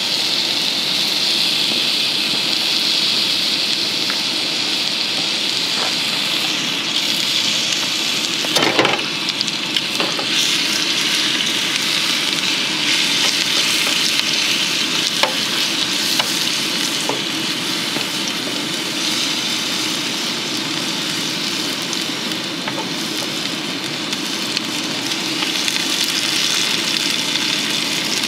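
Chicken pieces sizzling steadily in hot oil in a non-stick frying pan on an LPG camp burner. A sharp clack about nine seconds in and a few lighter clicks follow as metal tongs turn the pieces against the pan.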